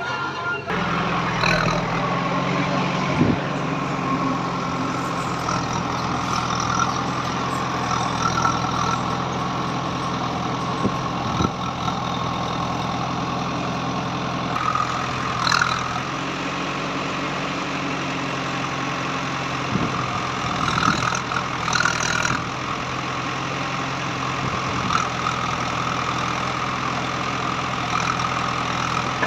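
Diesel engines of a backhoe loader and tractor running steadily, with a few brief knocks.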